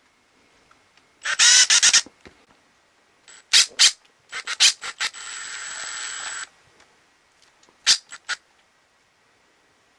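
Makita TD172D cordless brushless impact driver run free in several short trigger pulls, its motor spinning up and down. One run about halfway through is held steadily for over a second with a high electronic whine, and a few quick blips come near the end.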